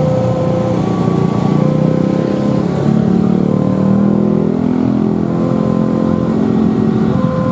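Railway level-crossing warning alarm sounding: an electronic two-note tone that switches pitch about once a second. Under it a passing vehicle's engine hum swells and falls in the middle.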